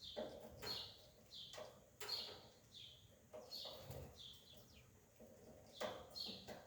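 A small bird chirping repeatedly, short calls about one or two a second.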